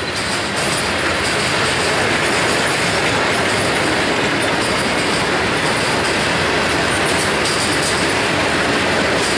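Freight cars of a Norfolk Southern mixed freight train (tank cars, covered hoppers, gondolas) rolling past close by: a loud, steady rumble and clatter of steel wheels on the rails, swelling slightly in the first second.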